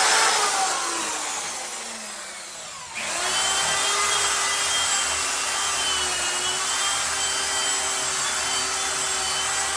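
An electric power tool's motor: a falling whine as it winds down over the first three seconds, then a sudden change to a motor running steadily at an even pitch.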